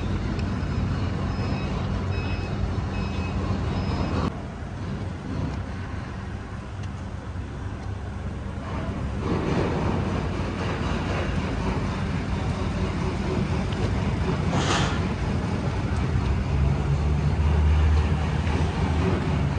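55 m ISA superyacht's engines and thrusters running while docking: a steady low hum with churning water wash, the hum swelling near the end. A regular electronic beeping, about one beep a second, sounds over it for the first four seconds.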